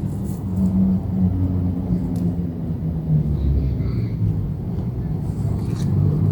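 Low, steady engine drone, its pitch shifting slightly.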